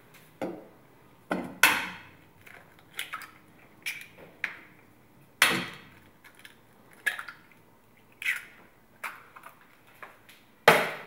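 Two eggs being cracked and opened over a stainless steel bowl: a string of short knocks, taps and shell cracks, with a louder knock about five seconds in and another near the end.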